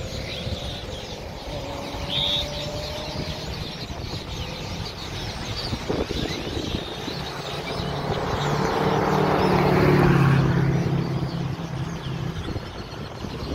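Many birds chirping and chattering in the trees, with road traffic going by; a vehicle passes, louder and louder until about ten seconds in, then fades.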